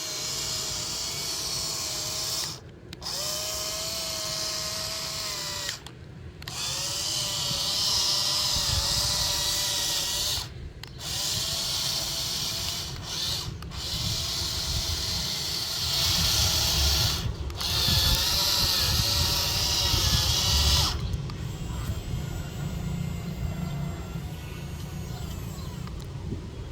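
Small electric motors of a toy excavator whining in runs of a few seconds, cutting out briefly several times and starting again, the pitch dipping slightly under load. The whine stops about 21 seconds in, leaving a fainter rumble.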